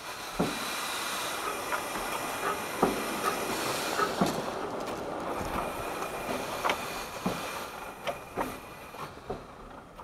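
Exmoor Steam Railway-built 12¼-inch gauge steam locomotive moving slowly, with a steady hiss of steam and irregular clicks and clanks of the wheels and running gear over the rails and points. The hiss fades near the end.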